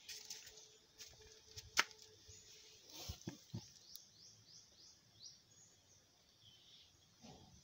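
Faint handling sounds: a few sharp clicks, the loudest a couple of seconds in, and soft knocks around three seconds. About four seconds in comes a quick run of short, high, rising bird chirps, about five a second for a second and a half.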